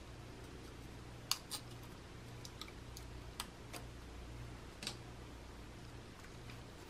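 Faint scattered clicks and rustles as a paper backing is peeled off a new toilet flapper's seal ring and the plastic flapper is turned in the hands, over a low steady hum.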